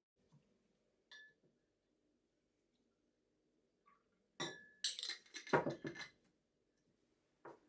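Scattered short, sharp clinks: one about a second in, a cluster of several in the middle and one near the end, over a faint low hum.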